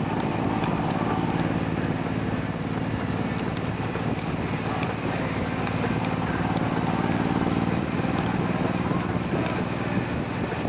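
A vehicle engine running steadily at cruising speed, under a constant rush of wind and road noise.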